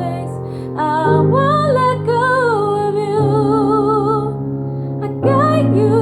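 Female voice singing a wordless, ornamented melody with vibrato over sustained piano chords, with a new chord about every two seconds.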